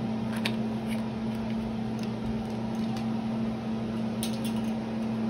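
Steady low hum of a running kitchen appliance, with a couple of faint clicks about half a second in and near the end.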